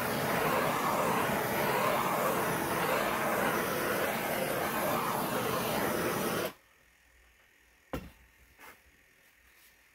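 Handheld gas torch flame hissing steadily as it is swept over wet epoxy to move the poured colours around; the hiss cuts off abruptly about six and a half seconds in. A sharp click follows a little over a second later, then a softer knock.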